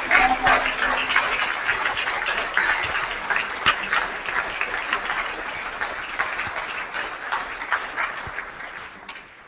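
Congregation applauding, many hands clapping, the applause thinning out gradually and dying away near the end.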